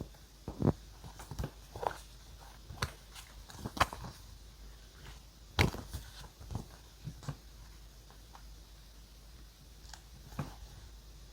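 Close, irregular taps, clicks and short paper crinkles from handling journaling materials on a desk, with the sharpest knocks in the first half and sparser, fainter ones later.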